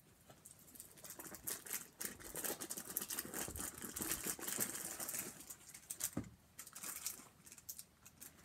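Packaging crinkling and rustling in quick, irregular crackles as a gift is handled and opened by hand, starting about a second in.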